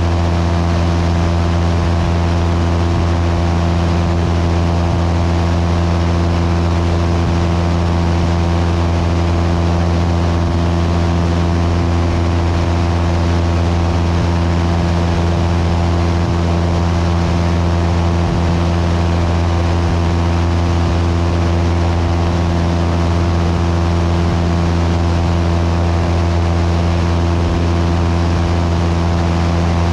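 Cessna 172's piston engine and propeller droning steadily in cruise flight, a deep hum with steady overtones that holds unchanged throughout.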